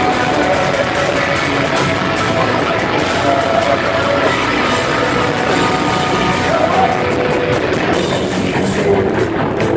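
Hard rock music with electric guitars and a singing voice.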